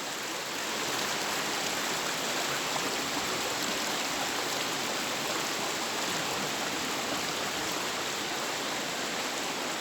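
A waterfall on a Highland river rushing steadily: an even, unbroken hiss of falling water.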